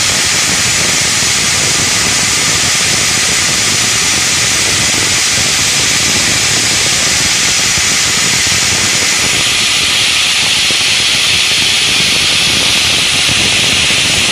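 Granite block cutting machine's circular diamond saw blades cutting granite, a loud, steady hissing grind that gets brighter about two-thirds of the way in.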